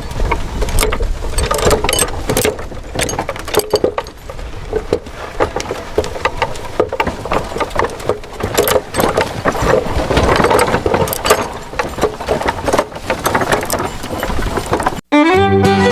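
Small motor-driven model machine running, with a dense, irregular clicking and rattling of plastic and metal parts. It cuts off about a second before the end.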